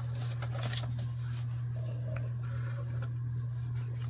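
A steady low electrical hum, with faint rustles and light handling of paper as a glue bottle is pressed to a small folded paper pocket.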